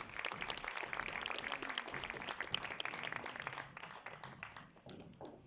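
Audience applauding, a dense patter of many hands clapping that thins out and dies away over the last second or so.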